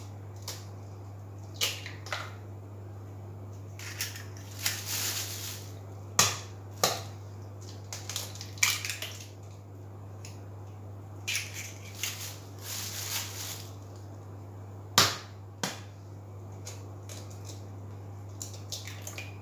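Raw eggs cracked one after another and broken open by hand over a plastic mixing bowl: sharp cracks of shell, the loudest about six and fifteen seconds in, with brief crackling as shells are pulled apart.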